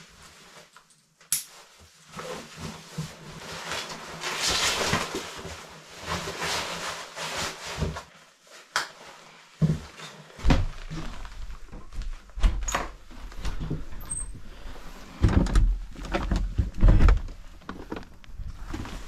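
Climbing gear being handled: rustling, scraping, clicks and knocks, with a low rumble of wind on the microphone from about ten seconds in, under more knocks and thuds.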